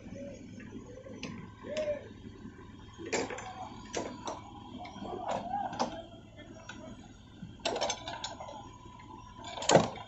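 Case 580L backhoe loader digging with its rear bucket: the engine hums steadily under scattered clanks and knocks of the bucket and boom working through rubble, with the loudest knock near the end.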